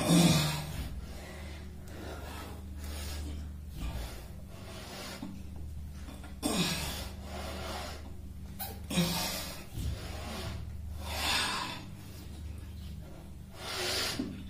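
A man's heavy breathing from exertion during bodyweight push-ups: forceful exhalations about every two to three seconds, in time with the reps, the strongest at the start. A steady low hum runs underneath.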